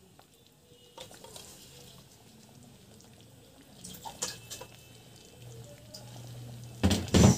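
Curry simmering quietly in an iron kadhai, with a few faint clicks. Two loud knocks near the end.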